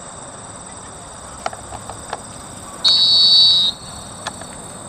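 A single short blast of a referee's whistle about three seconds in, lasting under a second, which signals play ready before the kickoff. Under it runs a steady high hum, with a few faint knocks.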